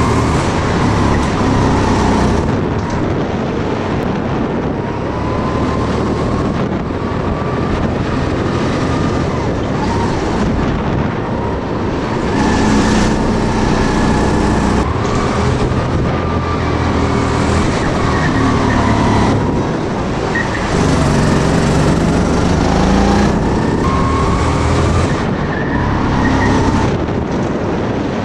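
Indoor go-kart driven hard around a track: a continuous engine note that climbs in pitch along the straights and drops back over and over as it brakes for the corners.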